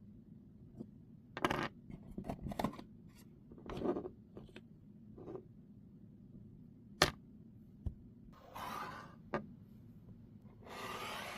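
Unboxing handling noise: irregular clicks, scrapes and rustles as packaging and small parts are handled. There is a sharp click about seven seconds in and longer rustling near the end.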